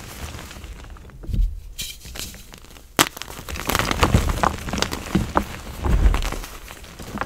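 Bare hands crushing and crumbling blocks of gym chalk into powder. Soft crunching and crackling, with one sharp crack about three seconds in.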